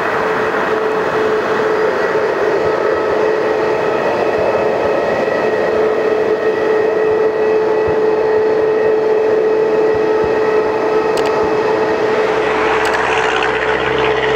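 Jet airliner's turbofan engines running at taxi power, a steady whine with a strong single tone over a broad rush. A deeper rumble joins near the end.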